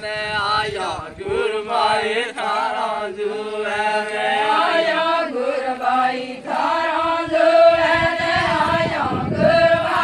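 A group of voices singing an Adivasi Gor folk song together in a chant-like style, with long held notes that slide between pitches.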